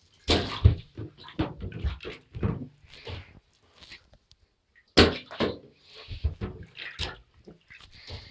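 Irregular splashing and sloshing of shallow water in a bathtub, mixed with knocks of hands and small objects against the tub, while a toy boat made of wine corks is handled and loaded.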